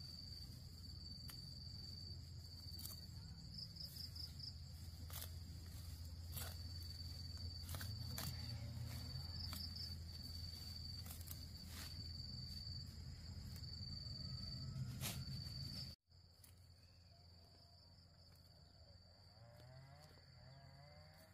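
Insects chirping outdoors in a steady, high-pitched trill that breaks now and then into short pulsed bursts, over a low rumble, with occasional sharp clicks. About three-quarters of the way through the sound cuts abruptly, and the rumble drops away while the insects carry on.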